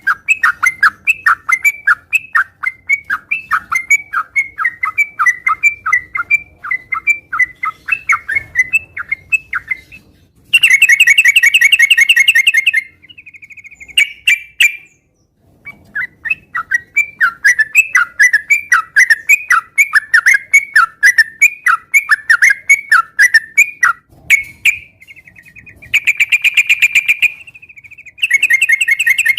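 Yellow-vented bulbul singing: fast runs of short chirps at about four or five a second, broken by loud buzzy trills about ten seconds in and again near the end.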